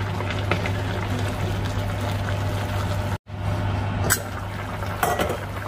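Steady liquid sound of a dish cooking in its sauce in a pan, with a few light clicks. The sound drops out completely for a moment a little past three seconds in.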